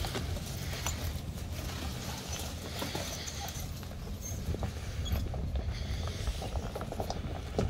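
Off-road vehicle driving slowly over a rough dirt and gravel track: a steady low rumble with many scattered clicks, crackles and creaks.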